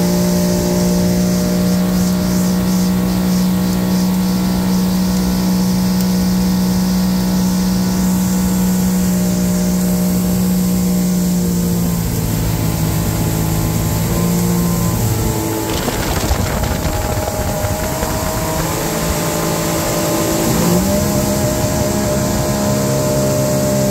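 Motorboat engine running at speed, a steady droning note over the hiss of wind and wake water. About halfway through, the engine note drops lower. For a few seconds the water and wind noise takes over. Then the note rises back up near the end.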